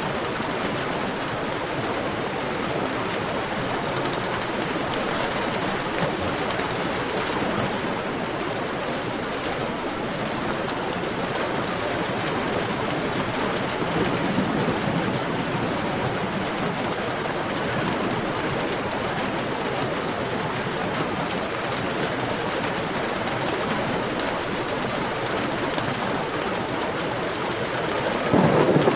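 Heavy rain falling steadily, an even dense hiss. Near the end a loud low rumble of thunder sets in suddenly over it.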